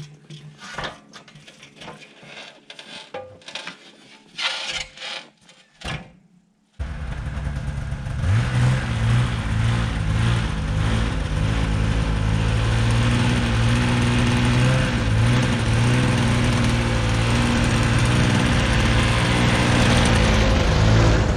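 Scattered knocks and clunks of log and lumber handling. Then, about seven seconds in, the portable bandsaw sawmill's gasoline engine comes in loud and runs steadily at high throttle, revving up slightly just after.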